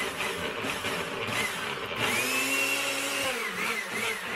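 Countertop blender running, mixing a protein shake, its motor pitch wavering and sliding up and down.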